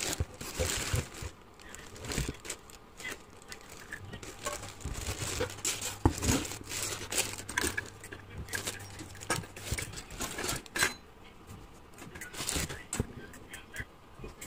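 Clear plastic packing wrap crinkling and rustling as pendant lamp shades are handled and lifted out of a cardboard box, with scattered light clicks and knocks.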